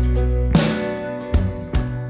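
Background song music in an instrumental stretch between sung lines: sustained notes over a bass line, with a few sharp drum hits.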